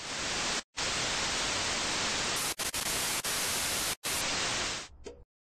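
Television static sound effect: an even hiss of white noise that cuts out briefly several times, about a second in and again around three and four seconds, then dies away near the end.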